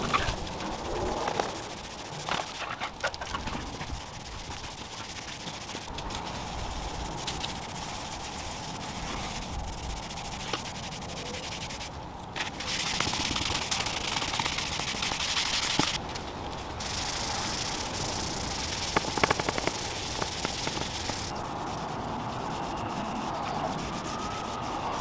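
Cloth rag rubbing wood stain into bare wood, a steady swishing rub with a few light clicks. The sound changes abruptly several times.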